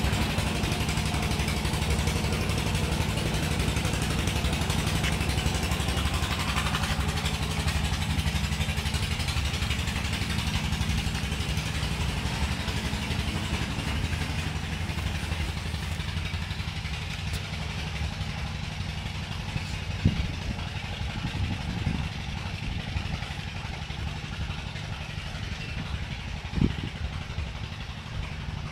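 An engine running steadily, with a couple of short knocks near the end.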